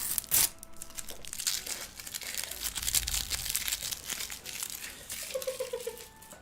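Graphics card packaging crinkling and rustling as it is unwrapped, with the loudest crackle about half a second in.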